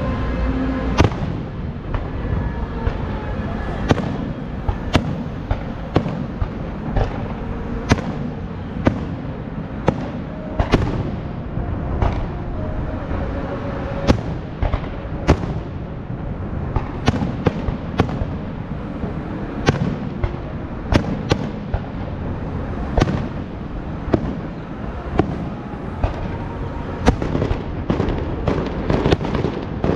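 Fireworks display: dozens of sharp bangs at uneven intervals over a continuous low rumble.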